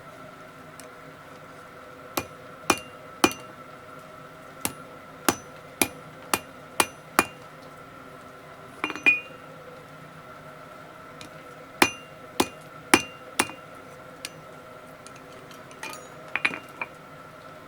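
Blacksmith's hammer striking a steel bar on the anvil: sharp, ringing blows in short runs of about two a second, with pauses between the runs. A steady hum runs underneath.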